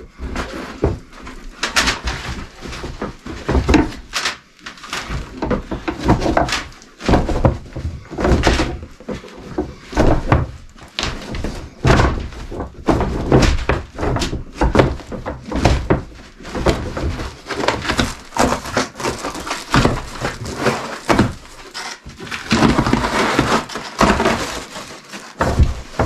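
Irregular knocks and thunks with crinkling rustles as foil-faced bubble insulation is pulled back and handled against wooden framing while electrical wire is run behind it.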